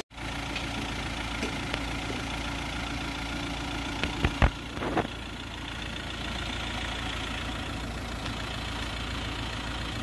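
A motor running at a steady idle, with a constant low hum. A few short knocks come about four to five seconds in.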